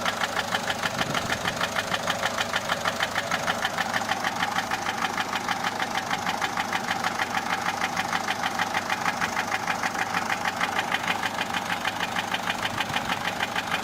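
Peugeot 407's 1.6 HDi four-cylinder diesel engine idling with a steady, rhythmic knock. The mechanic suspects it could come from a broken hydraulic tappet or the camshaft, or else from piston damage.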